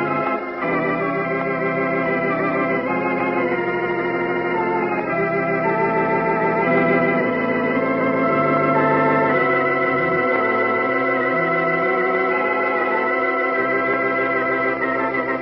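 Organ music: slow sustained chords, some notes wavering, that change every two or three seconds, typical of a radio drama's closing music.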